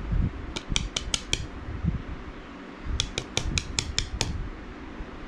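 Two quick runs of light, sharp metal clicks, about five or six a second, with a few dull handling bumps between them, from small hardware being handled at a workbench.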